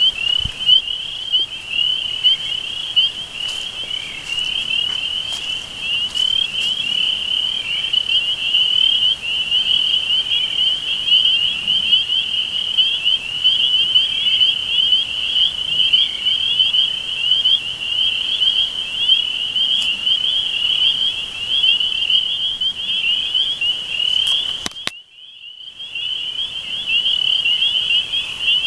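Dense, steady chorus of trilling insects, a high-pitched buzzing shimmer with no pauses. It drops out for about a second near the end, then resumes.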